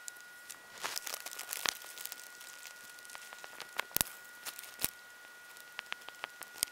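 Plastic wrap crinkling in scattered small clicks and crackles, with sharper taps about four and five seconds in, over a faint steady high whine.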